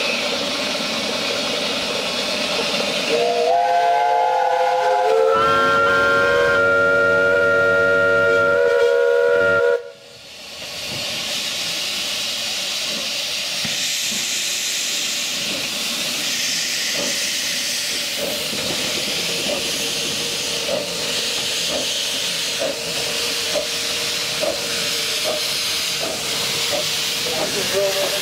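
Steam whistles of several 15-inch-gauge steam locomotives on a five-engine multi-header sound together for about seven seconds: one starts a few seconds in, others join, and all stop abruptly. A steady hiss of steam follows, with steam escaping at the cylinders as the train gets under way, and faint regular beats in the later part.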